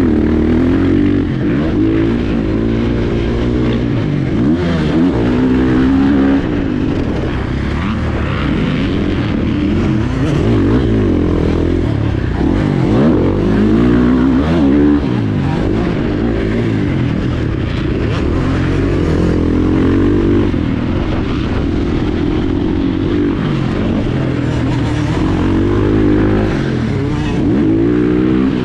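KTM 450 SX-F's single-cylinder four-stroke engine, heard from the rider's seat, revving hard under racing throttle. Its pitch climbs and drops over and over as the throttle is opened and rolled off through corners and straights.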